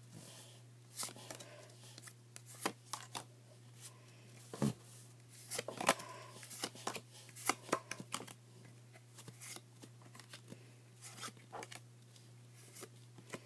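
Magic: The Gathering trading cards being handled one by one: irregular soft clicks and snaps as single cards slide off a hand-held stack and onto others. A steady low hum runs underneath.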